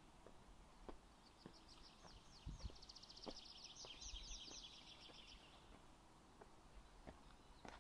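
Faint footsteps walking at a steady pace, with a small bird singing a fast trill of rapidly repeated high notes from about a second and a half in to about five and a half seconds in.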